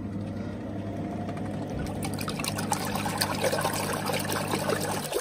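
Rovus portable mini washing machine running a wash: the motor hums steadily while the water churns and sloshes around the jeans in the tub. The motor stops about five seconds in.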